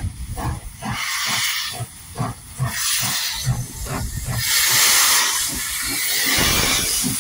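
Steam locomotive working slowly past, its exhaust chuffing in a steady rhythm with bursts of hiss from the open cylinder drain cocks. About four and a half seconds in, the hiss swells into a loud, continuous rush of steam as the engine draws level.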